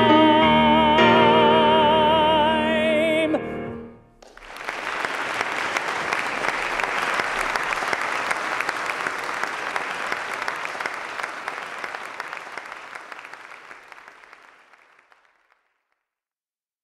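A male singer holds a final sung note with vibrato over the accompaniment, which cuts off about three and a half seconds in. After a brief pause, audience applause starts and gradually fades away to silence.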